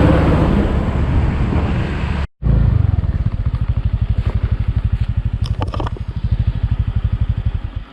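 Motorcycle engine running on the move, then, after a brief dropout about two seconds in, idling with a fast, even putter until it cuts off near the end as the engine is switched off.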